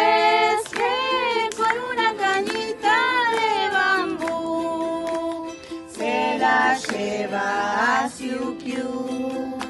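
A group of children and adults singing together, with steady held notes from an accompanying instrument.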